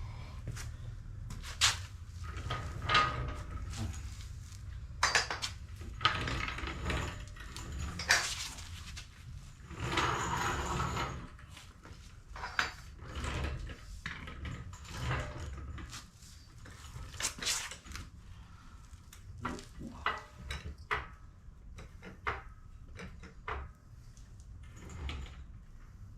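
Hand work on car parts: scattered clinks, knocks and scraping of metal parts and tools being handled, with a couple of longer rustling or scraping stretches.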